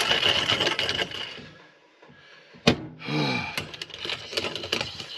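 Hand-cranked burr coffee grinder crunching through beans, the grinding dying away about a second and a half in. A sharp click comes near the middle, followed by a few lighter clicks and knocks.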